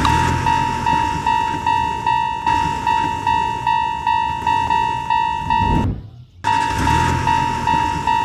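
Japanese railroad-crossing warning bell ringing in even strokes, about two and a half a second, over the low rumble of a passing train. The sound cuts out for a moment about six seconds in, then resumes.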